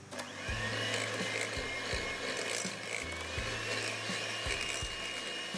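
Electric mixer beating softened butter with melted white chocolate into buttercream: a steady whirring motor whose whine climbs in pitch in the first second as it comes up to speed, then holds.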